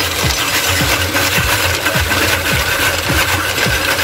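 Cast-iron ice-shaving machine grinding a block of ice into shaved ice, a steady rasping with a beat of about three strokes a second and a faint steady whine that comes in about a second in.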